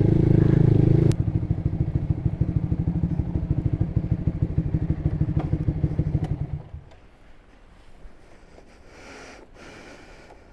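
Honda Supra GTR150 motorcycle's single-cylinder 150 cc engine, fitted with an aftermarket exhaust, runs a little above idle for about a second, then settles to a pulsing idle and is switched off about seven seconds in. The rider says the engine still sounds like it has a cold.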